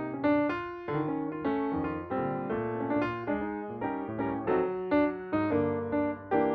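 Background piano music: a gentle melody of plucked-sounding notes, each struck and fading away.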